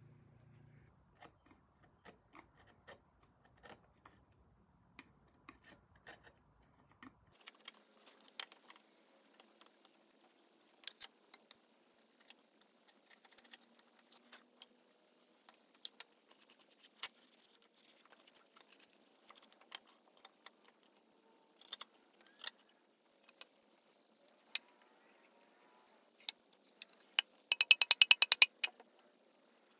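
Wooden chair parts being handled and fitted by hand: scattered light knocks, clicks and scrapes, ending in a quick run of a dozen or so sharp clicks.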